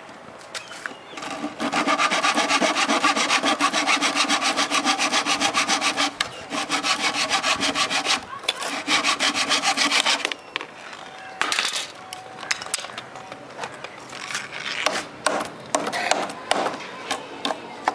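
Hand saw cutting wood in quick, even back-and-forth strokes for about nine seconds. It stops, and a hammer follows with scattered light blows on the wooden box.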